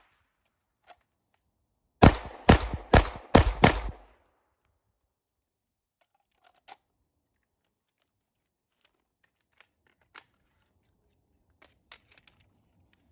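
Suppressed KP9 firing 147-grain subsonic 9mm: a quick string of five shots in about two seconds, starting about two seconds in. A few faint clicks follow.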